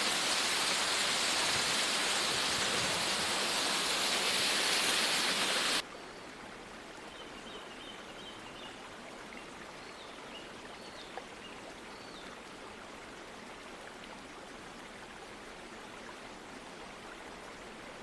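Waterfall water rushing and splashing over rocks, loud and close at first, then cutting abruptly about six seconds in to a softer, steady rush.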